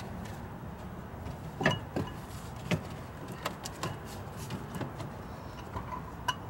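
Hands refitting parts in a truck's engine bay: a scattered run of sharp plastic and metal clicks and knocks, the loudest a little under two seconds in and again just under three seconds in, over a steady low hum.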